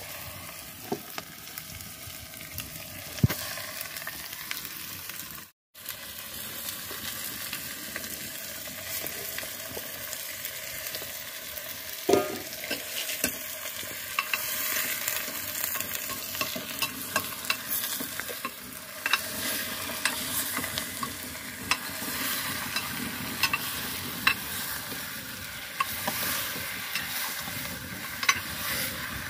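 Mutton frying and sizzling in mustard oil in a pot over a wood fire, stirred with a metal ladle that clinks and knocks against the pot at irregular moments, with a brief dropout about five seconds in.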